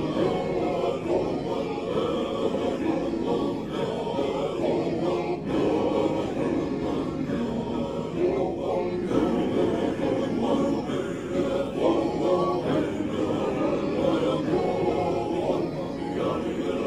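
A group of voices chanting together in chorus, continuous and unaccompanied-sounding, at an even level.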